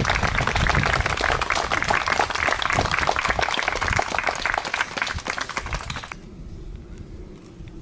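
A crowd applauding, many hands clapping fast and densely, cutting off abruptly about six seconds in.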